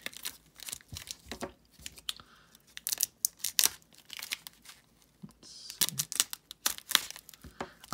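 Tape being torn and peeled off a heavily taped mail package, with crinkling of the shiny wrapping, in short irregular rips and rustles.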